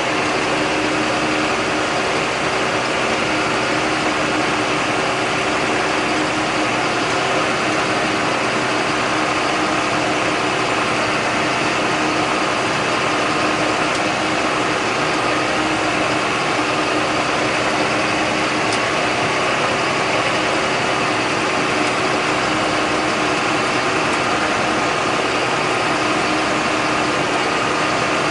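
John Deere 8100 tractor's six-cylinder diesel engine running steadily under load while pulling a John Deere 466 baler through the hay.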